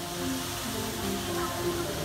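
Music with slow, held notes that step from pitch to pitch, over a steady hiss.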